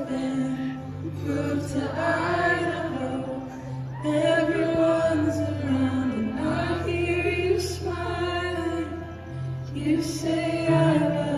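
Live concert music: a woman singing slow, held phrases into a microphone over sustained low accompaniment notes that step to a new pitch every few seconds, in a large outdoor amphitheatre.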